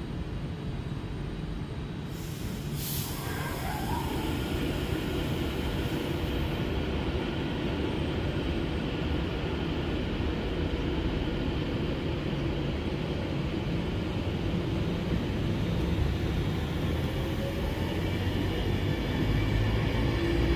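Avanti West Coast Class 390 Pendolino electric train rolling slowly along the platform, a steady rumble of wheels on rail that grows louder toward the end. A brief high hiss comes about two seconds in.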